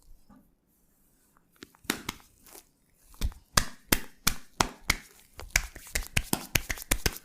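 A masseur's hands striking in rhythmic percussion massage: sharp slaps begin about two seconds in, settle into about three a second, and come faster in the second half.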